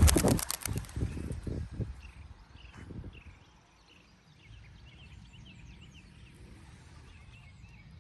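A basketful of racing pigeons bursting into flight, a rapid clatter of wingbeats that fades away within about two seconds. Afterwards faint chirps of small birds over a low outdoor rumble.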